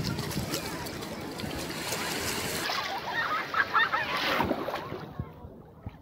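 Small waves lapping along a shallow sandy shore lined with washed-up seaweed, a steady watery wash with faint distant voices from a crowded beach, easing off near the end.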